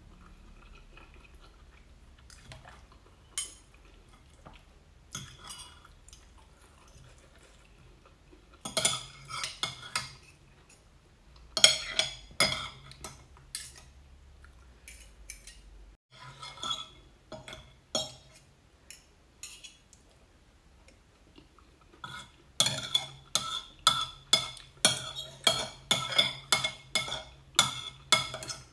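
Metal fork and spoon clinking and scraping against a ceramic plate. The clinks come in scattered clusters at first, then as a fast run over the last six seconds as the last noodles are gathered from the nearly empty plate.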